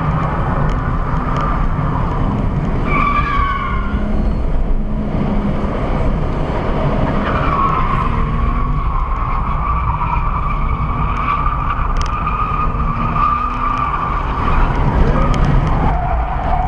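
Car tyres squealing as cars drift: a short squeal about three seconds in and a long, steady one from about halfway, over heavy engine and road rumble heard from inside a following car.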